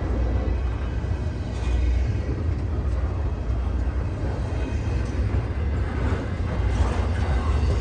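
Norfolk Southern freight train rolling slowly past, a steady low rumble.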